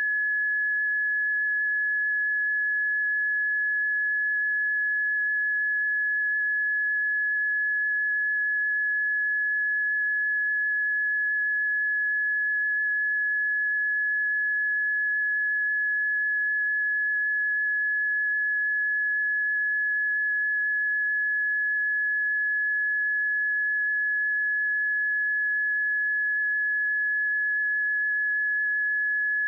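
Seismic early-warning monitor tone: a single pure, steady, fairly high tone that holds one pitch without a break. Its pitch does not change, the sign that no earthquake or eruption is being flagged.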